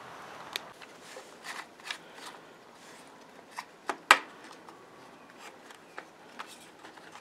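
Hands taking apart the switch box of an electric log splitter: a string of light clicks and knocks from the box and switch parts, the loudest a sharp click about four seconds in.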